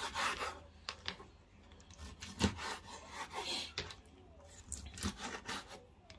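Large kitchen knife cutting raw liver on a wooden cutting board: the blade scrapes and rasps through the meat and knocks against the board several times.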